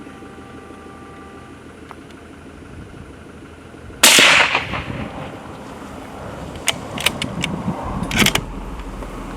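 A single rifle shot about four seconds in, its report fading over about a second, followed by a few sharp clicks and knocks.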